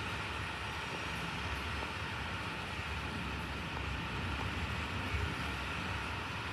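Thunderstorm noise: a steady rushing sound with a low rumble under it, with no single crack or clap.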